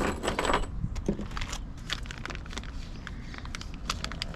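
Loose metal cut nails clinking and rattling against each other as they are handled: a string of small, irregular metallic clicks.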